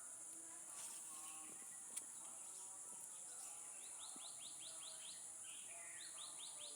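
Steady high-pitched insect drone, with a bird giving two quick runs of about seven chirps each, about four and six seconds in. A single sharp click about two seconds in.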